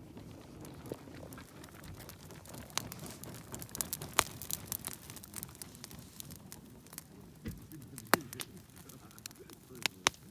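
Wood campfire crackling, with irregular sharp pops and snaps as sparks burst from the burning wood; a few louder pops come a little after 4 seconds, just after 8 seconds and near 10 seconds.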